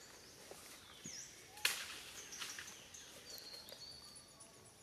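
Faint outdoor ambience with a bird calling in the background: a high call that sweeps down and holds a note, repeating every couple of seconds. A single sharp click comes about a third of the way in.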